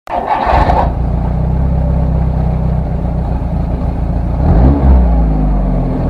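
A car engine running steadily with a deep, low hum, after a short noisy burst at the very start. The engine's pitch rises briefly, like a rev, about four and a half seconds in, then settles.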